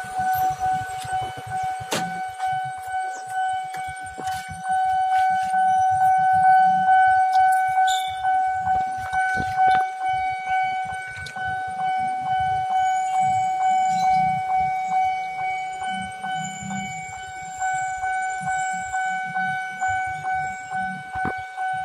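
Railway level-crossing warning alarm sounding while a train is due. It is a steady electronic tone with rapid, evenly spaced dings, over low traffic rumble.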